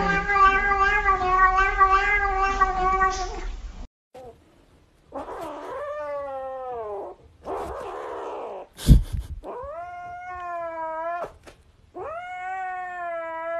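Cats yowling: first one long, wavering yowl, then, after a short pause, a kitten gives three drawn-out cries that rise and fall in pitch. A single sharp knock comes between the kitten's first and second cry.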